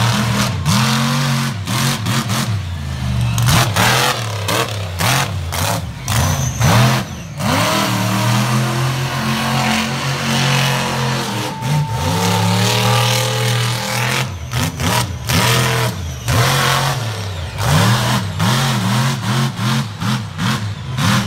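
Monster truck's supercharged big-block V8 revving hard over and over, its pitch climbing and falling with the throttle. It holds a steadier high note partway through and gives quick short blips near the end.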